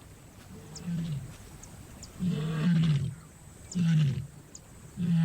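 A lioness calling in a series of four low, pitched calls about every second and a half, the first faint and the rest louder. The calls of a lioness in heat, advertising that she is ready to mate.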